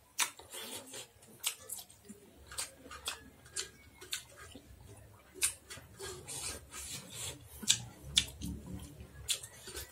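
Close-up eating sounds: chewing and lip-smacking on rice and chicken, a string of short wet smacks and clicks at about two a second.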